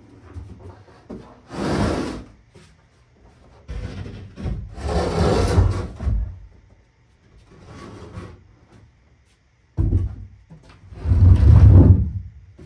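A large camper tub of laminated cedar framing skinned in quarter-inch plywood being tipped up onto its end, its wooden edges scraping and knocking on a concrete floor in several separate bursts. The loudest and heaviest comes near the end as it settles upright.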